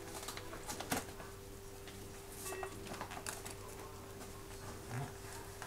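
Hand vacuum pump drawing the air out of a vacuum splint around an ankle: scattered faint clicks and handling noises over a steady hum.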